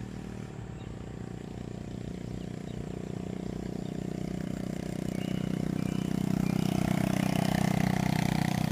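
A motor vehicle's engine running as it approaches, growing steadily louder, with its pitch starting to fall near the end.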